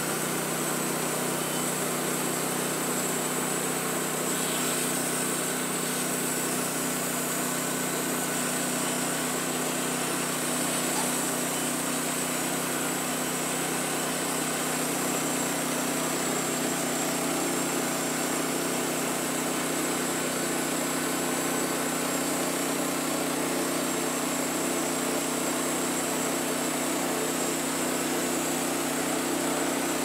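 Portable band sawmill's small gasoline engine running steadily while the band blade cuts lengthwise through a log, an even drone with no change in pitch.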